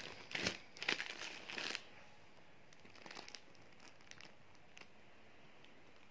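Plastic wrapping crinkling in a few short rustling bursts as a blouse is handled on it, dying down after about two seconds to a few faint rustles.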